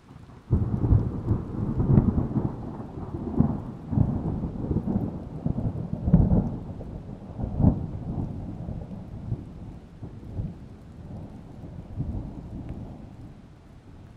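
Thunder in a rainstorm: a sudden loud clap about half a second in, several crackling peaks of rumble over the next seven seconds, then a long roll that slowly fades.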